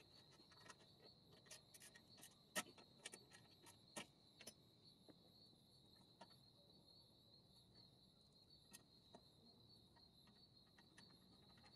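Near silence: a faint, steady high-pitched tone with scattered light clicks and taps, two of them louder about two and a half and four seconds in, as hand tools bolt the machine back together.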